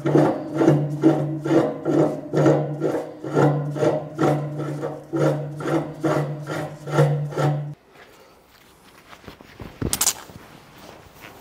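Background music with a steady beat and a bass line, cutting off abruptly about three-quarters of the way through. After that there are faint scraping workshop sounds and one sharp click near the end.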